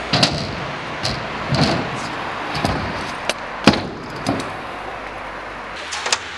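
Stunt scooter wheels rolling on the skatepark surface, with a string of sharp clacks and knocks as the scooter's wheels and deck hit the ramps and ground, the loudest a little past halfway.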